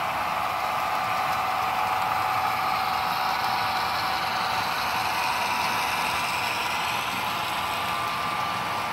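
HO scale model trains running on the layout: a steady whir of the locomotives' motors and gearing with the wheels rolling over the track.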